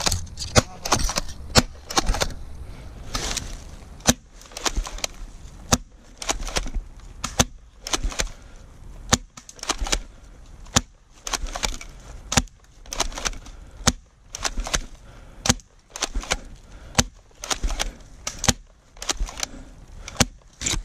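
Airsoft shotgun fired over and over, a sharp clack about once a second with some shots coming in quick pairs, and dry leaves rustling underfoot between shots, until the gun runs out of BBs.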